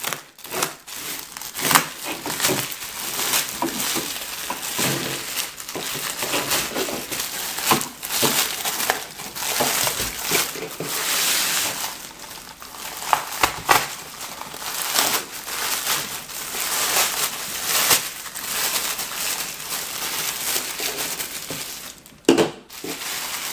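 Plastic bubble wrap and packing sheet crinkling and rustling as it is cut and pulled open by hand, an irregular crackle with a short break near the end.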